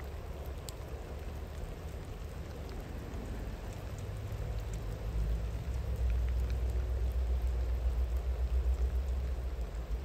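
Steady rain with scattered drop ticks, over a low rumble from a distant train that grows louder about five seconds in.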